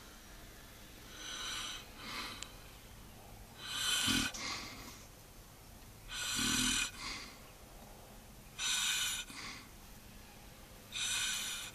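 A man snoring in his sleep: a loud noisy snore about every two and a half seconds, with quiet gaps between.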